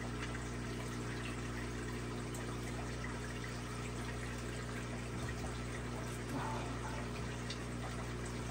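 Steady low hum and trickle of water from running aquarium filtration and pumps.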